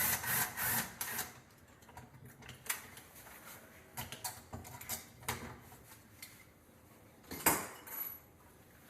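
Small metal clicks and clinks of door-lock hardware and tools being handled while a smart deadbolt is fitted. The clicks come quickly at first, then only now and then, with one louder knock near the end.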